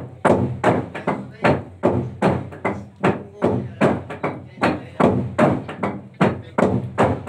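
A hollowed tree-trunk log drum beaten in unison by a row of players with wooden beaters: a steady rhythm of loud strikes, about two and a half a second, each ringing briefly.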